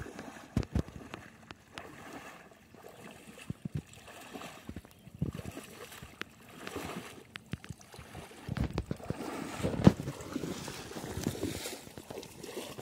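Water splashing and sloshing as a person wades through shallow pond water, in irregular steps, with a sharper splash about a second in and another near the end.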